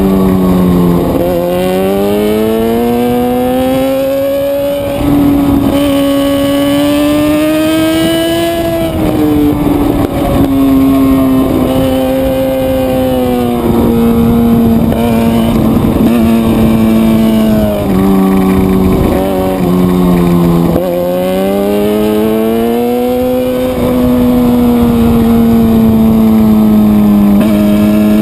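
Suzuki GSX-R600 inline-four sport-bike engine running hard at high revs. Its pitch climbs and falls repeatedly, with sudden steps where gears are shifted.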